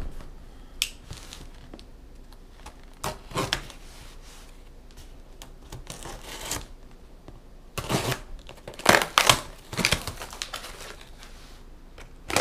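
Cardboard box being opened by hand: packing tape torn and cut, with cardboard flaps scraping and rustling in scattered short strokes, the loudest cluster about eight to ten seconds in.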